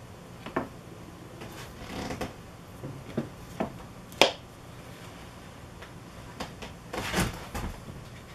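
A wooden jig and board being handled and shifted on a table saw: a few scattered knocks and clunks, the sharpest about four seconds in, and a longer scraping slide about seven seconds in.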